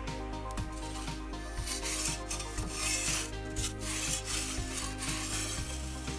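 Metal pizza peel scraping and rasping across the oven's stone baking floor as the pizza is turned and the peel drawn out, in several scrapes through the middle, over steady background music.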